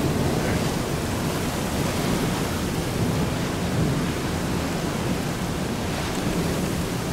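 Strong storm wind rushing over the microphone, a steady noise that swells and eases slightly in gusts: the strong winds just behind a tornado that has passed barely to the south.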